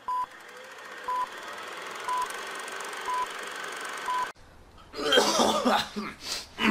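Intro sound effect: five short electronic beeps about a second apart over a swelling hiss, which cuts off suddenly about four seconds in. Loud, breathy human vocal sounds follow about a second later.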